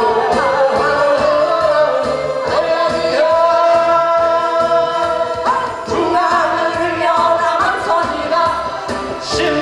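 A woman singing a song into a microphone over amplified backing music with a steady beat. She holds long sustained notes in the middle of the phrase.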